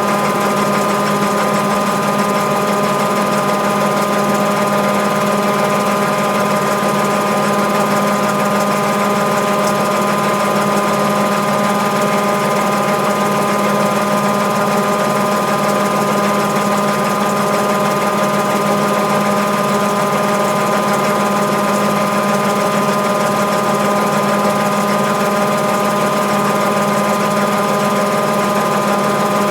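Mabe Aqua 18 kg top-loading washing machine running its normal spin cycle: a steady mechanical hum from the main motor and the drain pump turning the drum, with a constant pitch throughout.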